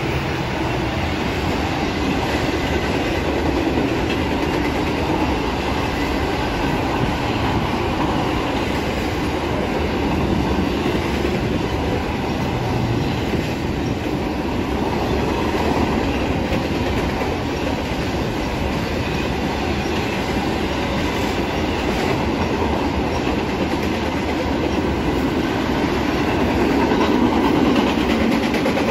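Double-stack container freight train rolling past at steady speed: a continuous rumble of steel wheels on rail from the passing well cars.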